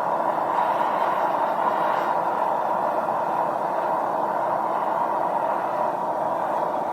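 Metal-melting furnace running with forced air, a steady rushing noise that stays even throughout, while scrap copper melts for casting.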